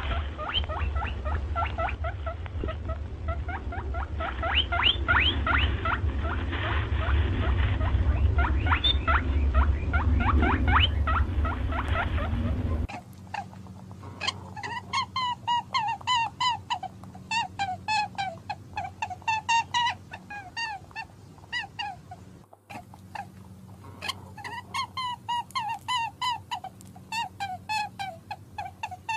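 Animal calls: many quick chirps over a low rumble that stops abruptly about 13 seconds in, then rhythmic, evenly repeated calls a few times a second.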